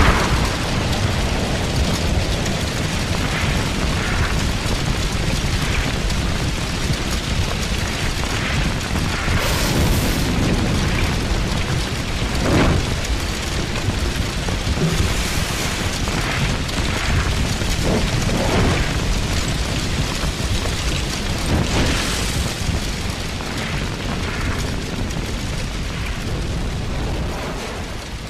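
Small fire burning: a steady rushing noise with a few louder crackles and pops, fading near the end.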